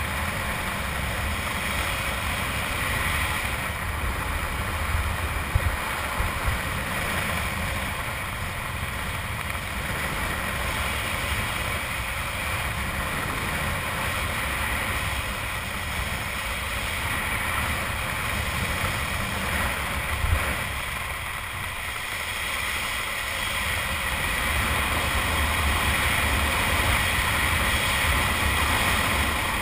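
Steady wind rushing over a body-worn camera's microphone during a parachute descent under an open canopy, with a low rumble and a few brief knocks, growing a little louder near the end.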